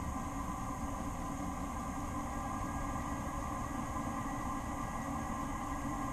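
Diesel air heater running: a steady hum with a low rumble, unchanging throughout.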